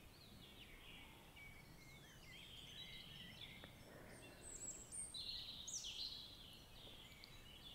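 Faint birdsong: scattered short chirps and calls over a quiet background hiss, a little louder about four to six seconds in.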